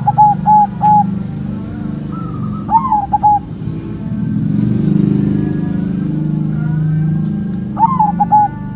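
White zebra dove (perkutut) cooing: three short phrases of quick clipped notes, near the start, about three seconds in and near the end. Under them runs a steady low rumble.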